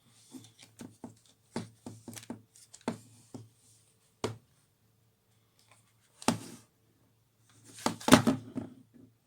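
Handling noises: a quick run of light clicks and taps, then a louder knock about six seconds in and a cluster of louder knocks near the end.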